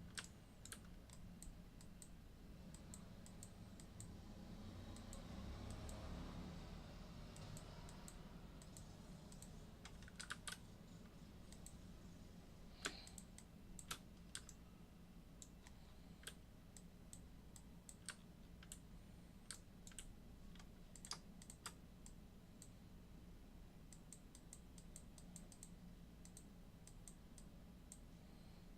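Faint, scattered clicks of a computer keyboard and mouse, irregular and coming in quick runs near the end, over a low steady hum.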